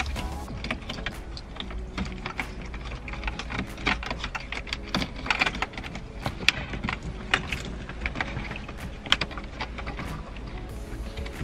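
Irregular clicks and light knocks of parts being handled and fitted, over a steady low hum.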